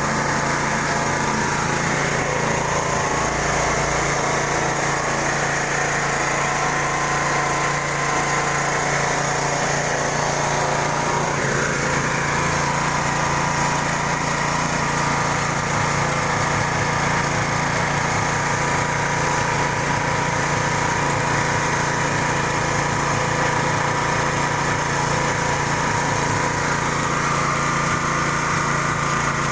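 Vertical pellet mill with a 4 mm die running continuously, its drive and pressing mechanism making a steady mechanical drone with a constant hum.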